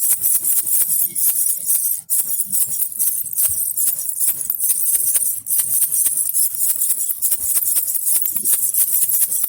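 Baby rattle (jhunjhuna) shaken continuously, giving a dense, rapid, uneven jingling rattle with a bright, high sound.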